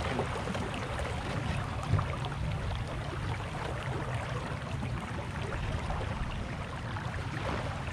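Water rushing along the hull of a small sailboat under way, with wind buffeting the camera microphone as a steady low rumble. One brief louder thump about two seconds in.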